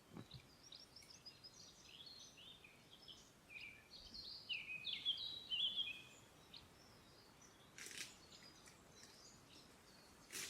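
Songbirds singing in a forest: a quick run of short, high chirping notes, loudest a little past the middle, then two sharp clicks near the end.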